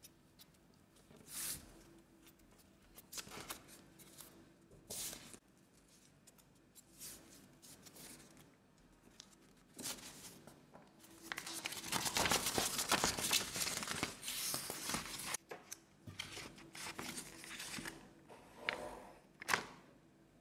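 A4 printer paper being handled and folded by hand: scattered crinkles and crisp creasing strokes, with a longer, louder stretch of rustling and rubbing a little past halfway and a sharp crisp snap near the end.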